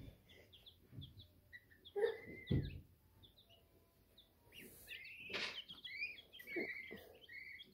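Young brooder chicks peeping: many short, high cheeps, often overlapping, most sliding downward in pitch. A couple of soft thumps come about two seconds in.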